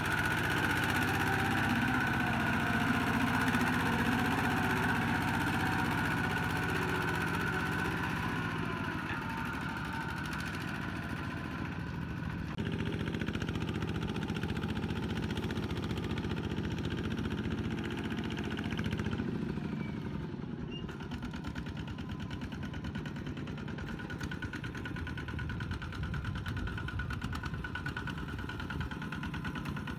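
Kubota two-wheel walk-behind tractor's single-cylinder diesel engine running steadily while it pulls a trailer through mud. The sound shifts abruptly twice partway through.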